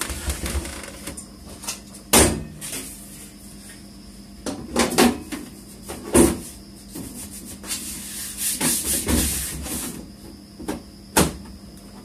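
Sheet-metal side panel of a Dell Inspiron 620 desktop case being fitted and slid shut: several sharp knocks and clatters against the chassis, a scraping slide about two thirds of the way through, and one more knock near the end.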